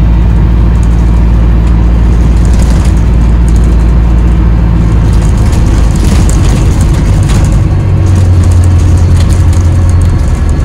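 Alexander Dennis Enviro400H MMC hybrid double-decker bus, heard from inside the lower deck while it drives along. There is a steady low drone that shifts about halfway through, a strong low hum near the end, and light interior rattles throughout.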